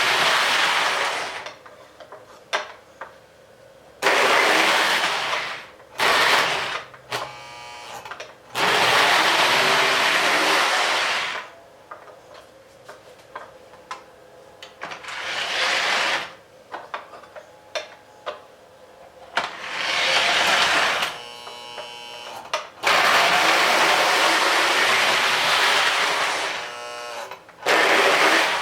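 Lionel 2343 O gauge toy train's electric motor running in bursts of two to three seconds, stopping in between, with small clicks in the pauses.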